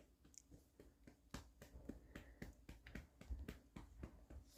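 Faint, soft taps of a hand patting a baby's back to bring up a burp, sparse at first, then about three or four a second from about a second in.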